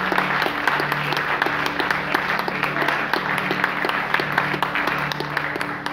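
A congregation applauding steadily, with many hands clapping at once, over a keyboard holding sustained chords.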